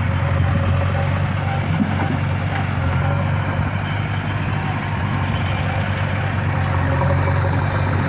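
Diesel engines of a JCB 3DX backhoe loader and a John Deere 5050D farm tractor running steadily at low revs, with an even low drone.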